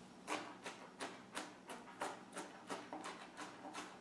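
Chef's knife chopping onion on a cutting board: a steady run of light chops, about three a second.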